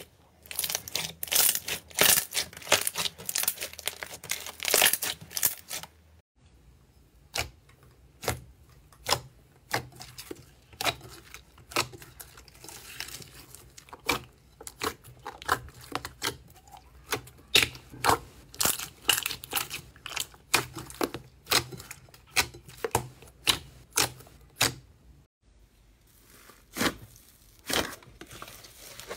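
Hands pressing and poking slime. A dense run of rapid sticky crackling for about the first six seconds is followed by irregular sharp pops and clicks, one or two a second, as fingers push into glossy slime.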